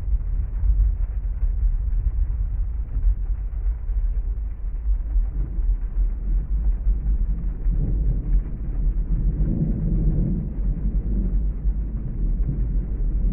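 Heavy rain ambience as a steady low rumble, with a roll of thunder swelling about eight seconds in and fading about three seconds later.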